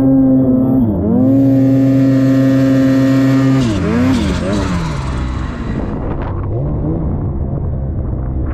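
Snowmobile engine running at high revs with a steady drone that dips and picks up again about a second in. From about four seconds in the throttle is eased off and blipped up and down, and the engine settles to lower, rougher running.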